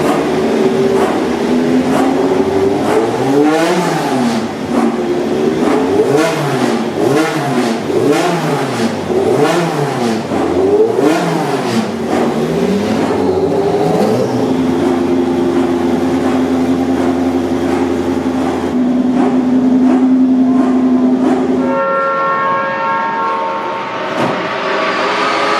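A Group C sports-prototype race car engine being blipped over and over, its pitch rising and falling about once a second. It then holds at a steady engine speed for several seconds, and the tone changes again near the end.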